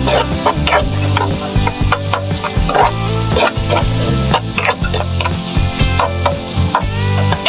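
A plastic spatula stirring and scraping sliced onions and garlic around a frying pan, with repeated short strokes over the steady sizzle of the oil as they sauté.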